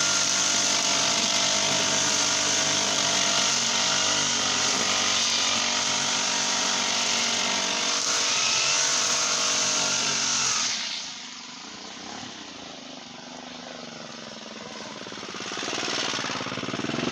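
Brush cutter's Honda GX35 four-stroke engine running at high throttle. About eleven seconds in it drops to a low idle, then revs back up near the end.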